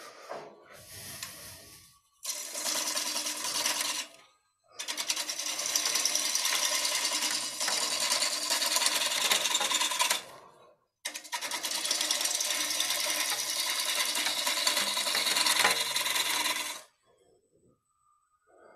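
A turning tool, such as a bowl gouge, cutting a spinning blank of green cedar on a wood lathe in three passes: a short one about two seconds in, then two long ones of about five seconds each, with brief pauses between. It stops about three-quarters of the way through.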